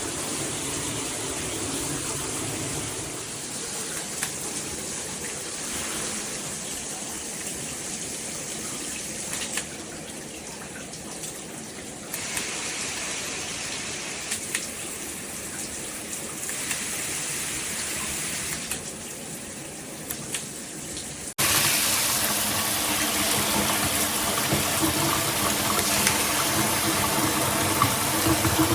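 Water spraying from a handheld shower head in a steady hiss that shifts in character several times, then jumps suddenly to a louder, fuller spray about 21 seconds in.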